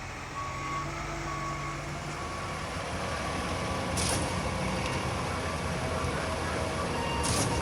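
Concrete mixer truck's diesel engine running as it backs up, with its backup alarm beeping about once a second. The beeping fades after a few seconds while the engine grows louder. Two short air hisses, about four seconds in and near the end.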